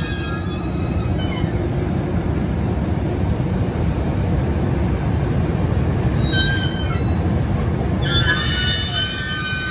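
JR Freight EH200 twin-unit electric locomotive rolling slowly over yard track, a steady rumble of wheels on rail. High steady squealing tones join in about eight seconds in, and briefly once before that: the wheels squealing on the rails.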